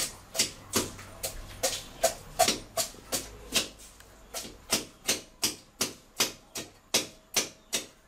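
A knife scraping scales off a whole fish in quick, even strokes, about two to three a second, each a short rasping scrape.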